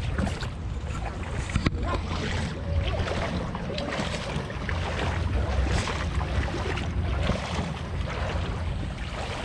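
Feet wading through knee-deep muddy stream water, a steady sloshing and splashing with each stride, under a low rumble on the microphone.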